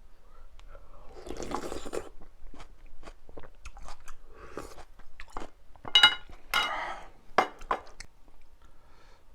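Close-up eating sounds of a person eating mala ramyun: chewing and biting, with a longer wet smear of sound about a second in and several sharper, louder smacks or clicks about six to eight seconds in.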